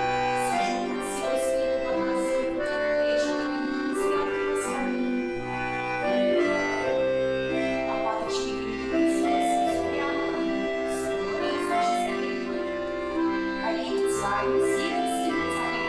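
Live instrumental accompaniment for barre exercises in a folk-dance class, played as long held chords and melody notes on a keyboard-type instrument or accordion. Short sharp taps sound over the music now and then.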